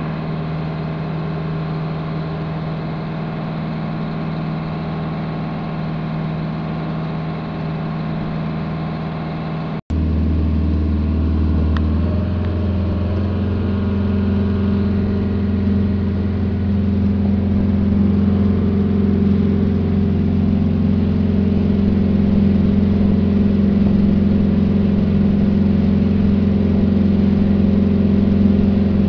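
Boat engine running steadily, a constant hum. It cuts out for an instant about ten seconds in and comes back louder and deeper, shifting again in pitch a couple of seconds later.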